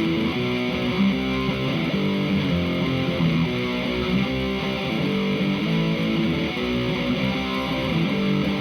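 Electric guitar played through a Hughes & Kettner Attax Metroverb 50-watt transistor amp, its overdriven lead channel sounding through a 12-inch Celestion speaker, with sustained chords and notes ringing steadily.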